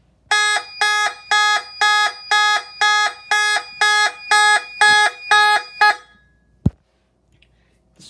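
Federal Signal Vibratone mechanical fire alarm horns sounding in alarm after a pull station is pulled, in even pulsed blasts at about two a second. The horn stops about six seconds in, followed by a single click.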